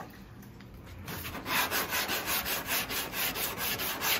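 Hand wet sanding: wet-and-dry sandpaper on a cork block rubbed back and forth over the repaired nose of an epoxy sandwich windsurf board. The even strokes come about three a second and start about a second and a half in, after some quieter handling.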